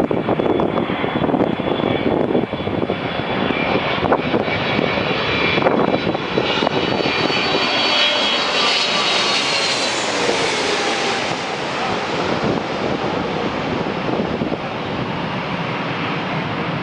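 Jet engines of a wide-body airliner passing low overhead on landing approach. A steady rumble runs throughout, and a high turbine whine grows to its loudest about halfway through, then fades as the aircraft moves away.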